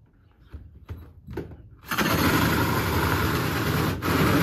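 A few faint clicks, then about two seconds in a cordless DeWalt drill starts up, driving a 70 mm hole saw into the bus's aluminium side panel with a loud grinding cut. The cut dips briefly near the end. The drill is labouring through the double-skinned panel, which is hard going for it.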